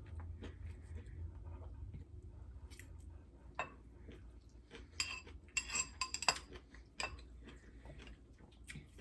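Cutlery clinking against dishware: a scatter of sharp clicks, most of them bunched about halfway through, over a faint low hum.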